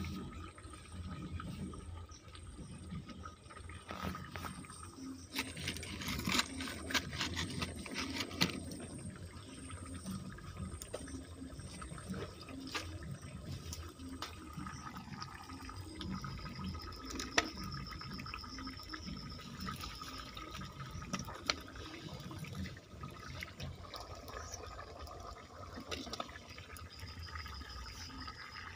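Thick chicken curry with potatoes bubbling at a simmer in a metal kadai over a wood fire, in its last minute or so of cooking, with scattered crackles from the burning wood. A louder spell of hissing noise comes about five seconds in and lasts a few seconds.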